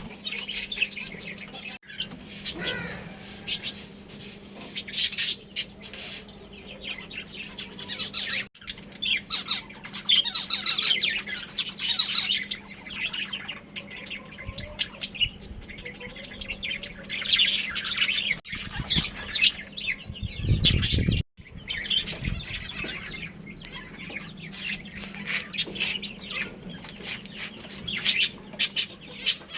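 A flock of budgerigars chirping and chattering, with many short, high calls overlapping. A loud low rumble comes about two-thirds of the way through.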